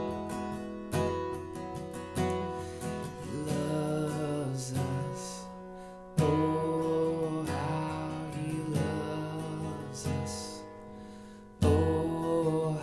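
Steel-string acoustic guitar played with a capo: slow strummed chords, with three hard strums about a second, six seconds and near twelve seconds in, each left ringing and fading. A man's voice sings softly over the guitar.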